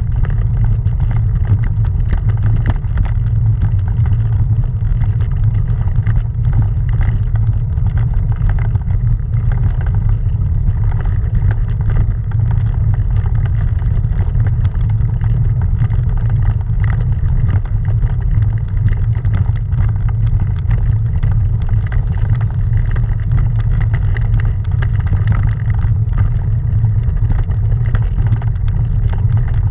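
Bicycle rolling uphill over a cobblestone road: a steady low rumble with a dense rattle of small jolts as the tyres cross the stones.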